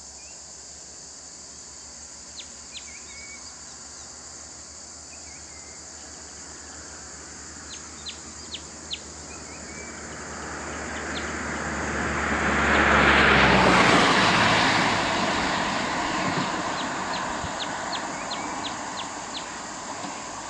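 A motor vehicle drives past close by: its engine and tyre noise build up, peak about two-thirds of the way through as the engine note drops in pitch, then fade away. Short bird chirps and a steady high insect drone carry on underneath.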